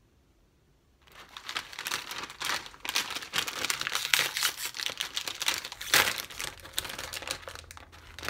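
Crinkly bag of Calbee seaweed-and-salt potato chips rustling and crackling as it is handled and pulled open, starting about a second in.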